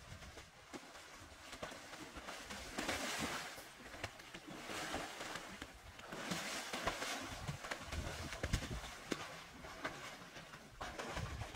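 People swimming and splashing in an outdoor pool: water splashing and slapping in uneven surges that swell and fade every few seconds.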